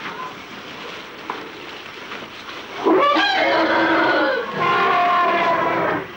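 African elephants trumpeting: two loud trumpet blasts, each over a second long, the first starting about three seconds in with a rising note and the second following close after. These are the alarm and threat calls of angry cow elephants.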